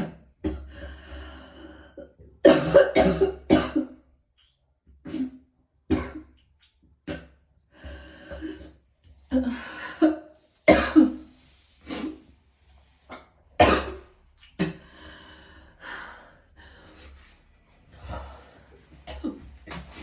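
A person coughing hard in repeated fits, with a quick run of three or four loud coughs about two and a half seconds in and more scattered through the rest. Throat clearing and heavy breathing come between the coughs.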